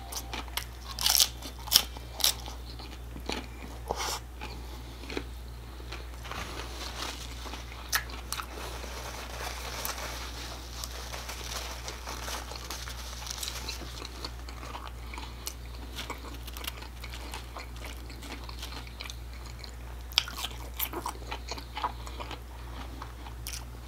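Close-up crunching bites into a crisp hard-shell corn taco, sharp crackles in the first few seconds and again near the end, with steady chewing in between.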